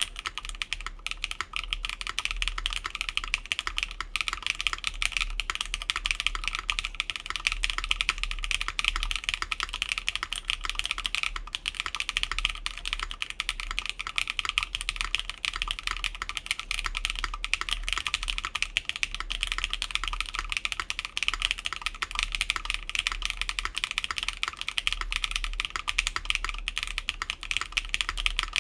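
Rapid continuous typing on an Atelier Magnus Slate Zero mechanical keyboard with factory-lubed Keygeek Blue Cheese v2 switches, a full aluminum plate and DSA keycaps, with no case or plate foam. A dense stream of keystroke clacks starts abruptly and runs without pause.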